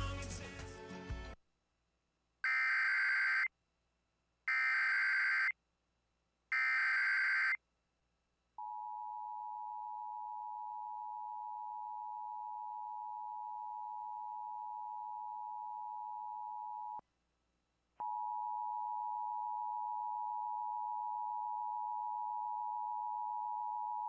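An Emergency Alert System alert header: three one-second bursts of SAME digital data tones about a second apart, then the long steady EAS attention-signal tone, which breaks off for about a second partway through and starts again. A brief loud sound fades out in the first second.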